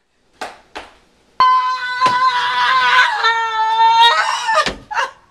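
A woman's long, high-pitched scream, held for about three seconds and dropping slightly in pitch partway through.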